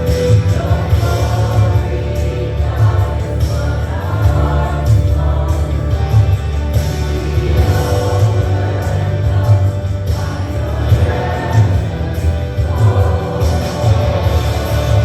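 Gospel worship song: a group of voices singing over a band with a heavy bass line.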